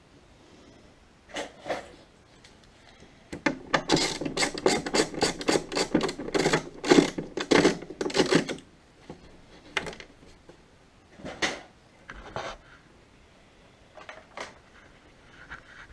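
A hand tool scraping back and forth across a workpiece, like filing: a quick run of even strokes, about four a second, for some five seconds. A few single scrapes come before and after the run.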